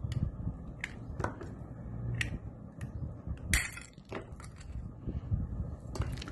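Scattered clicks and scrapes of a rechargeable torch's plastic body and parts being handled at the workbench, with a louder crackle about three and a half seconds in.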